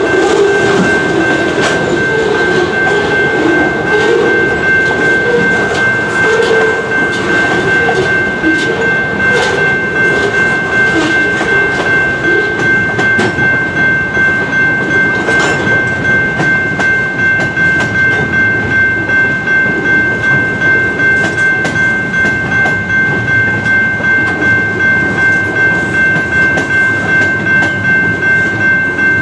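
Freight cars rolling over the crossing, with wheel rumble and clickety-clack strongest in the first half and easing off later. Over it the crossing's General Signals Type 2 electronic bell rings continuously, in a steady repeating pattern.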